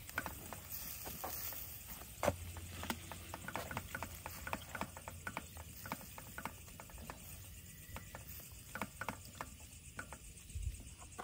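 Silicone spatula stirring and scraping rice vermicelli and vegetables in a steel wok, making rapid irregular clicks and taps against the metal, over a faint sizzle of the food frying.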